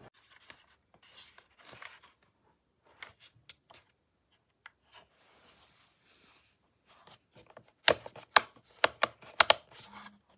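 Scattered faint clicks and rustles, then a quick run of about eight loud, sharp clicks near the end.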